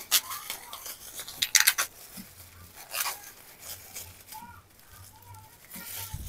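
Thin black plastic wrapping crinkling and tearing as it is pulled off a broom handle, in a few short rustling bursts, the loudest about a second and a half in.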